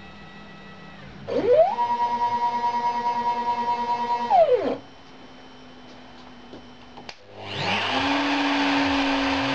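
CNC router's stepper motors making a rapid axis move: a whine that rises in pitch, holds steady for about three seconds, then falls and stops as the move decelerates. A few seconds later the Kress spindle motor starts up and runs with a steady, loud whirr.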